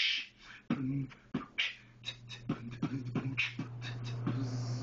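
A man beatboxing: sharp clicking and popping mouth-drum hits with hissing snare-like bursts, and from about two seconds in a steady low hum held underneath the beat.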